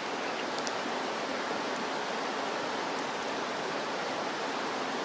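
Steady rushing outdoor background noise, even throughout, with a couple of faint ticks.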